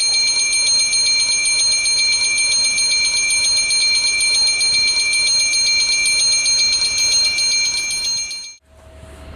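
Electric railway warning bell ringing rapidly and steadily, a fast, even metallic clatter of many strikes a second, which cuts off abruptly near the end. It gives way to a low rumble from an approaching train.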